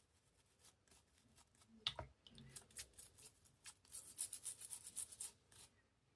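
Quick rubbing and scrubbing strokes of cleaning a Victorinox Spartan pocket knife, in runs of about five strokes a second, with a single knock about two seconds in.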